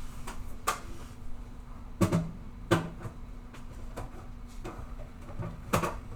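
Sharp knocks and clicks of objects handled on a study desk, the loudest pair about two seconds in, over the steady low hum of a quiet room.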